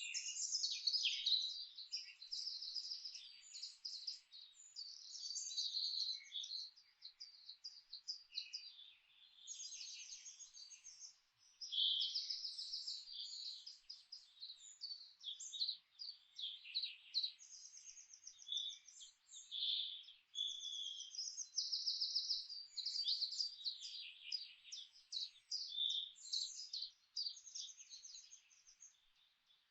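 Several songbirds singing together in a dense chorus of rapid chirps and high trills, overlapping with few gaps, over a faint steady hiss.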